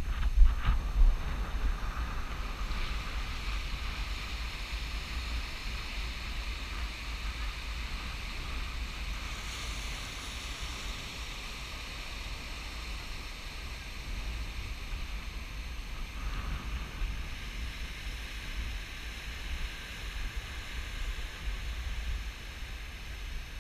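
Wind buffeting the microphone over a steady wash of ocean surf, with a few knocks in the first second.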